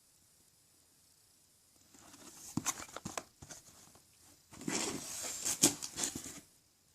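Plastic packaging crinkling and rustling with small clicks as it is handled, in two bouts: one about two seconds in and a longer one about four and a half seconds in.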